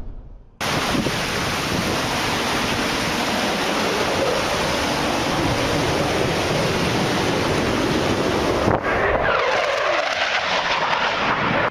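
Fighter jet making a low, high-speed pass: a loud, even roar of jet noise mixed with wind on the microphone, starting abruptly. Near the end a whine falls in pitch as the jet goes by.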